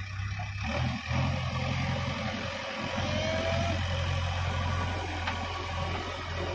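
JCB backhoe loader's diesel engine running steadily while the machine drives and carries a bucket load of earth.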